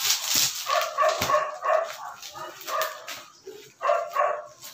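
A dog barking repeatedly in short runs of several barks, with plastic wrapping crinkling near the start.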